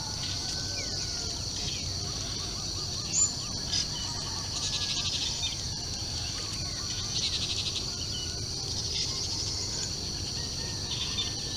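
Morning bird chorus: several birds calling, whistling and trilling, with two rapid trills near the middle, over a steady high-pitched drone of insects.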